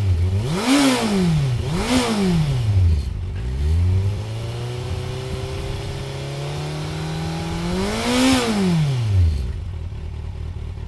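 Kawasaki Z800's inline-four engine revved while stationary through its standard exhaust: two quick throttle blips in the first two seconds, then a few seconds held at a slightly raised, slowly climbing rpm, and a third blip about eight seconds in before it drops back to idle.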